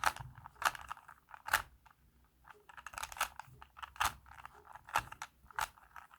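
Plastic Rubik's cube layers being turned by hand, a string of sharp irregular clacks as the faces snap into place, with a short pause about two seconds in.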